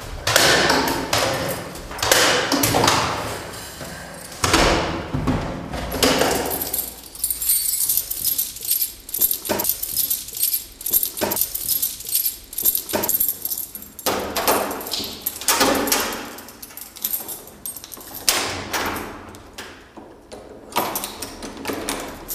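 An irregular run of rustles, knocks and sharp clicks from things being handled. Near the end a key jangles and turns in a door lock.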